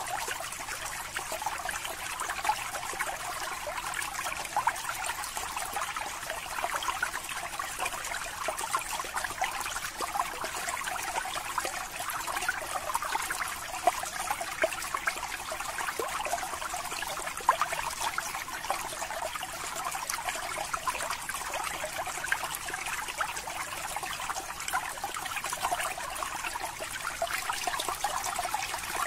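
Aquarium water bubbling and trickling steadily: a stream of air bubbles rising and breaking at the surface makes a dense patter of small pops, now and then a louder one.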